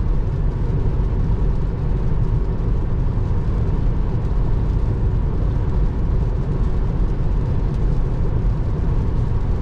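Steady road and wind noise inside a Tesla Model 3's cabin at highway speed on a wet road in the rain, with a deep, even rumble.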